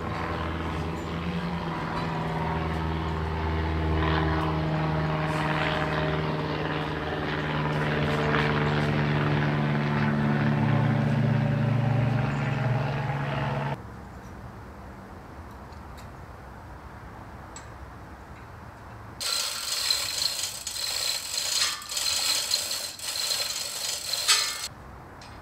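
A steady droning engine hum, its pitch drifting slowly, stops abruptly about fourteen seconds in. Near the end comes about five seconds of harsh, uneven rattling.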